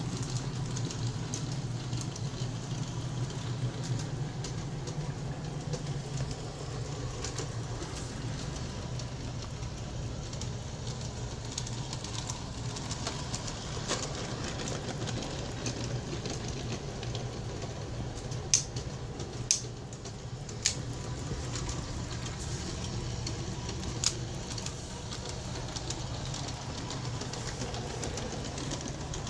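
Aristo-Craft G-scale 0-4-0T model train running on brass track: a steady low motor and wheel rumble, with a few sharp clicks about two-thirds of the way through.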